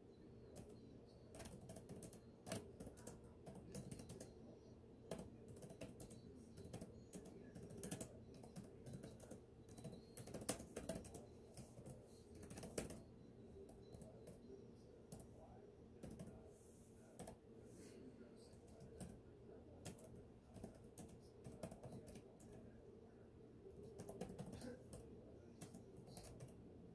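Faint typing on a computer keyboard: quick, irregular keystrokes in runs with short pauses.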